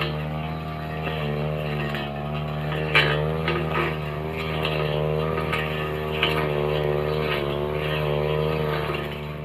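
Backpack brush cutter's engine running at high speed, its pitch dipping and recovering as the metal blade cuts through grass and undergrowth. Sharp ticks of the blade hitting stems and debris come through now and then, the loudest about three seconds in.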